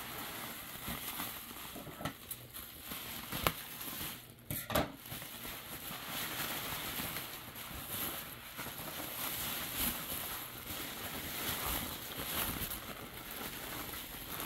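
Bubble wrap and a plastic bag rustling and crinkling as they are handled and pulled open, with a couple of sharp clicks a few seconds in.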